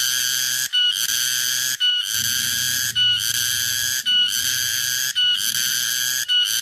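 Tonggeret (garengpung) cicada calling: a shrill, buzzing, strongly pitched song repeated about once a second, each phrase ending in a brief pitch catch and a short break, about six phrases in all.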